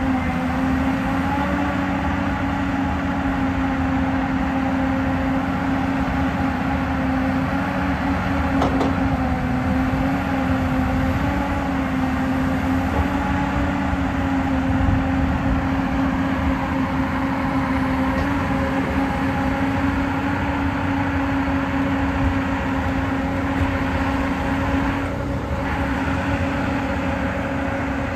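Hyundai R360LC-7A crawler excavator's diesel engine running steadily under load as the machine swings and works its boom and arm, a constant pitched drone with a brief click about nine seconds in.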